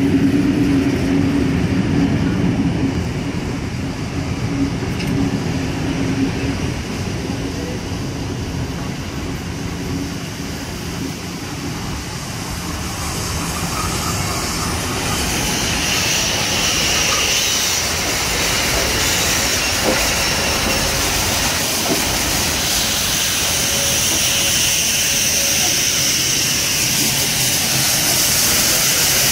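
Heritage passenger carriages rolling past along a platform, with a steady low hum over the first several seconds. From about fifteen seconds in, a steam locomotive draws level and a continuous hiss of escaping steam comes in over the running train.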